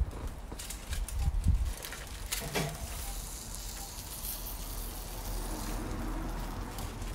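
Aluminium foil crinkling, with small knocks, as gloved hands handle a foil-wrapped smoked chicken on a kamado grill grate. There is a low rumble in the first second or two, one sharper knock about two and a half seconds in, and a soft steady hiss through the middle.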